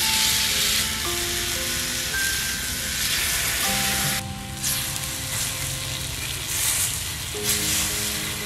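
Pork belly and octopus sizzling hard on a hot roof tile over a wood fire, a dense spattering hiss that dips briefly about halfway through. Soft background music with long held notes plays underneath.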